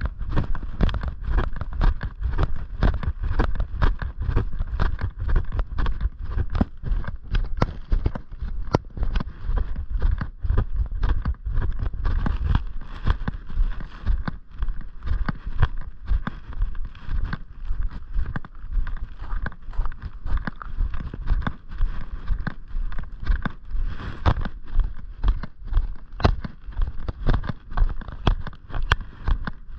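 Footsteps at a steady walking pace, about two a second, with wind rumbling on the microphone for roughly the first twelve seconds.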